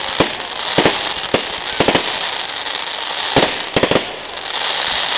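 Aerial fireworks shells bursting in a string of about eight sharp bangs, some in quick pairs, over a steady hiss from the display.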